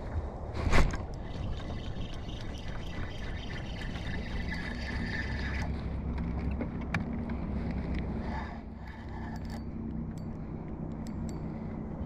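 Wind buffeting the microphone while a spinning reel is wound in, with one sharp knock about a second in.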